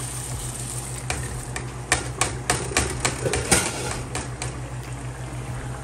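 A quick, irregular run of sharp knocks of kitchenware against a cooking pot as rice is added to the chicken for tehari, most of them between about two and four seconds in.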